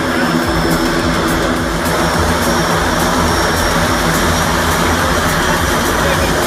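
Turbine Grumman Mallard's two turboprop engines running steadily with the propellers turning as the flying boat taxis slowly on the water.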